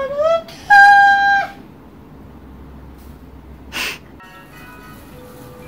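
A voice sings a short phrase that slides upward into a loud held high note, which breaks off about a second and a half in. A brief swish follows about four seconds in, then soft background music with held notes begins.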